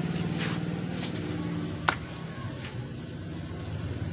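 An engine idling steadily, with one sharp metallic click just under two seconds in and a few faint scrapes of metal parts being handled.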